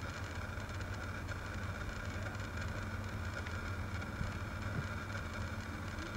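Steady low engine drone at a constant speed, with a faint steady high tone above it.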